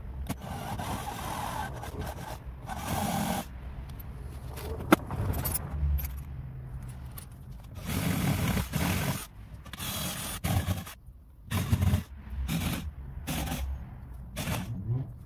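A cordless drill-driver runs in short bursts, driving the screws that fix a car-door speaker into its metal door mount, with scraping and handling noise between runs.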